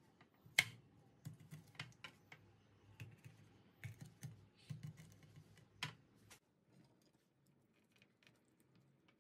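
Irregular light clicks and taps of a kitchen knife against a plastic tray and the fish as a whole mackerel is scored. The sharpest click comes about half a second in, and the tapping dies down after about six seconds.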